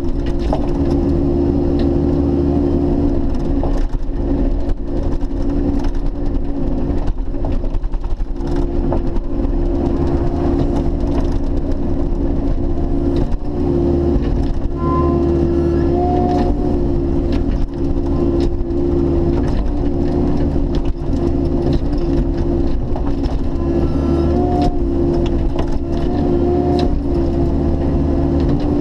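Bobcat E50 mini excavator's diesel engine running steadily under load, heard from the operator's cab. Brief hydraulic whines come as the boom works, and scattered knocks and cracks come as the ripper tooth tears at the soil and stump roots.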